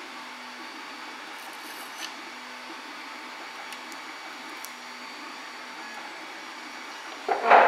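Hobby knife trimming MonoKote film along a wooden straight edge on a 3D-printer heat bed: a few faint ticks over a steady fan-like whir, then a short, loud scrape near the end.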